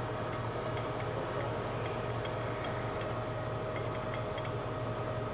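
Clausing Colchester Mastiff VS gap-bed engine lathe running at a steady speed: an even mechanical hum with a constant whine, and faint light ticks a few times a second on top.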